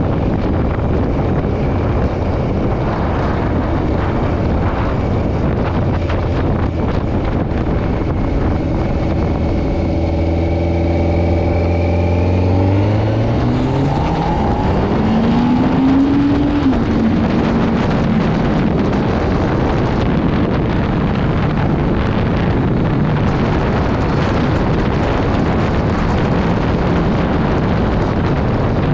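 Inline-four engine of a 2008 Kawasaki ZX-10R heard from the rider's seat, running at low steady revs at first. About halfway through it revs up steeply for a few seconds, drops back slightly at a gear change, then holds a steady higher note. Wind rushes over the microphone throughout.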